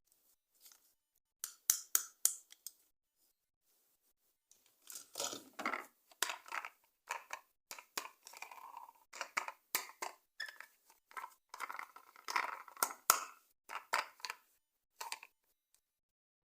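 Toy packaging being opened by hand: a few sharp clicks, then a long run of irregular crinkling, scraping and tearing of plastic and cardboard.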